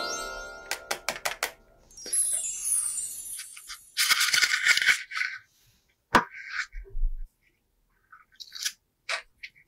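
Playful sound effects: a fast run of clicks, then a falling sweep of tones, then short rattling bursts separated by quiet gaps.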